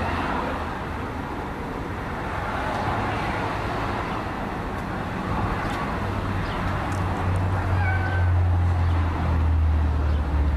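Toy radio-controlled helicopter's small electric motor and rotors buzzing in flight, getting louder in the second half.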